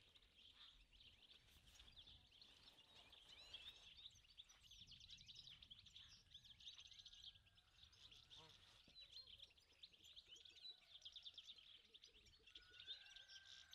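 Faint chorus of small songbirds chirping and twittering continuously, with a short held whistle near the end.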